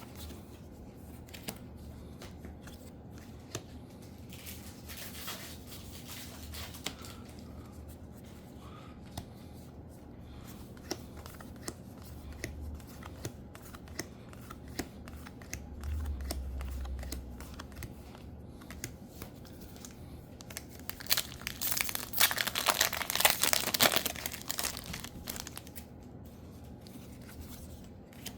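Foil booster-pack wrappers crinkling and being torn open, with light rustling and small clicks of handling throughout. The loudest tearing and crinkling comes in one burst about three quarters of the way through.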